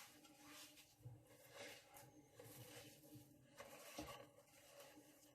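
Faint, irregular scraping and rubbing of butter and sugar being creamed by hand in a bowl, with a few soft knocks.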